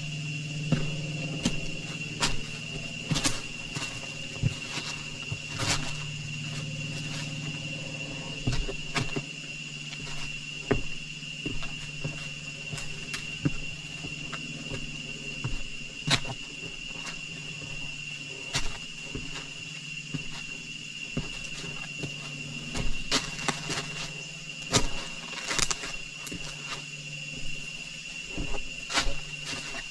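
A steady, high-pitched insect drone, with many irregular clicks and knocks over it.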